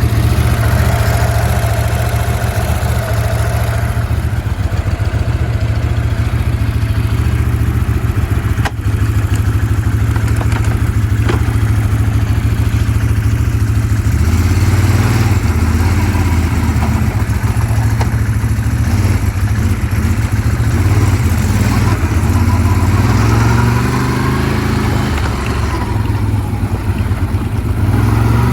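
A 2009 Can-Am Outlander 800 ATV's V-twin engine running, freshly rebuilt. Its note holds steady for the first half, then rises and falls with the throttle. The owner says the idle is slightly off because the throttle position sensor has not been set.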